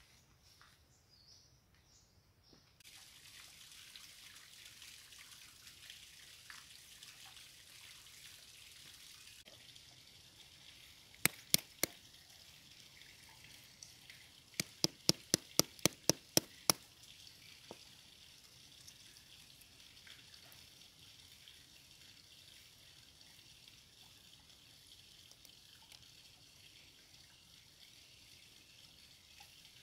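A stone knocking down onto small snail shells laid on a leaf over rock, crushing them for bait: three sharp knocks, then a quick run of about eight at roughly four a second. A steady rush of water runs underneath.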